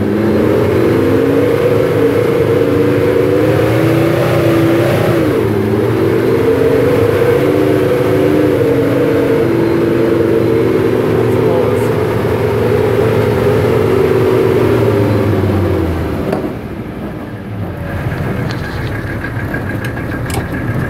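Hagglund tracked carrier's engine running under way. Its note dips briefly about five seconds in, then falls away and gets quieter about sixteen seconds in.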